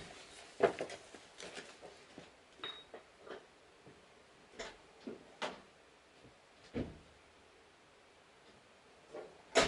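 Scattered short knocks and clunks, a dozen or so, of someone rummaging through an Iveco in search of a bolt, with a sharper bang just before the end.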